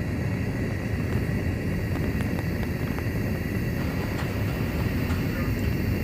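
Steady low roar of gas burner flames heating a copper wire on a running wire-making line, with a faint steady whine and a few light ticks.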